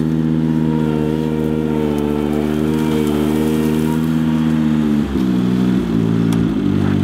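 Ventrac 4500 articulating tractor's engine running steadily as the tractor pushes through deep snow and cattails; about five seconds in its note drops and wavers, as if under heavier load.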